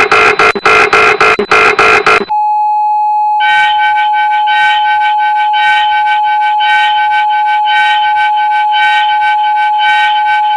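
Emergency Alert System style alarm tones. For about two seconds there are loud, harsh electronic bursts in rapid pulses. Then a single steady alert tone holds, and about a second later a higher beeping starts over it, pulsing about twice a second.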